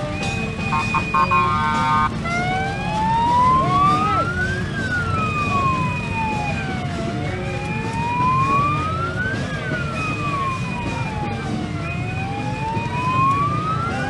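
Vehicle siren in a slow wail, rising and falling in pitch about once every five seconds, over the low rumble of a marching crowd. Near the start a short cluster of steady horn tones sounds before the wail begins.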